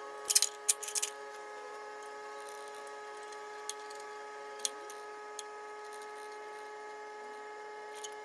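Sharp small clicks and taps, typical of tools or hardware being handled: a quick cluster in the first second, then a few single clicks. Under them runs a steady hum made of several held tones.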